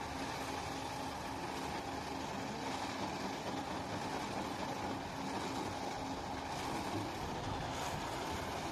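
Schwing Stetter SLM 4300 self-loading concrete mixer's diesel engine running steadily with a constant hum, while its hydraulic loading bucket is held raised over the drum.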